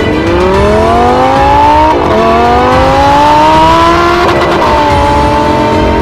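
Lamborghini Huracán LP610-4's V10 accelerating hard through the gears on a Fi Exhaust catless, valved exhaust. The pitch climbs, drops at an upshift about two seconds in, climbs again, and drops at a second shift past the middle, then holds steady at cruise.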